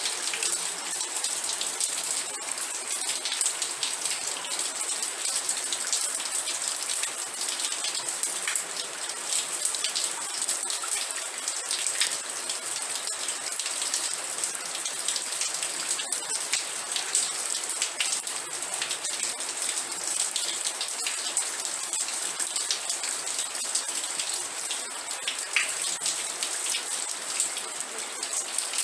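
Steady rain with many close drops pattering on a surface, a dense hiss with individual drop ticks.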